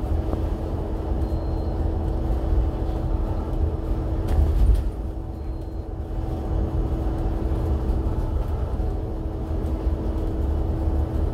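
Cabin noise of a bus travelling at highway speed: a steady low engine and road rumble with a constant hum, and a brief knock or rattle about four seconds in.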